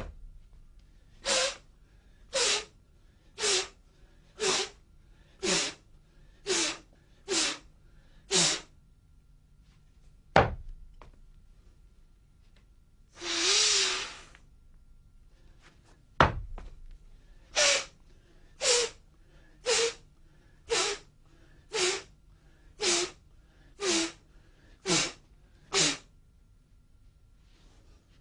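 A martial artist's short, forceful breaths, about one a second, eight in a row and then nine more after a pause, with one longer breath between them. Three sharp thuds, one at the start, one about ten seconds in and one about sixteen seconds in, stand out from the breathing.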